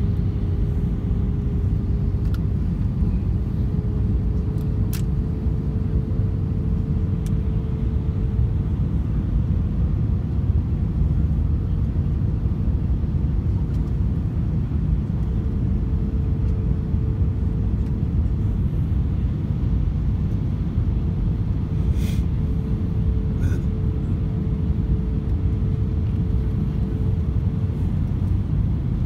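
Steady in-flight cabin noise of an airliner: a deep engine and airflow rumble with a steady hum that drifts slightly up in pitch. A few faint clicks.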